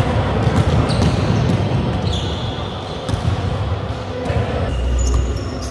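Basketball game on a sports hall court: the ball bouncing on the wooden floor amid players' running footsteps, with a couple of brief high sneaker squeaks, in the echo of the large hall.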